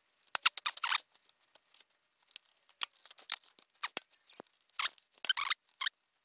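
Metal hand tools clicking and scraping on a shaper slide: a screwdriver turning a small gib adjusting screw while a wrench goes onto its lock nut. Sharp metallic clicks come in bunches, busiest about half a second in and again near the end.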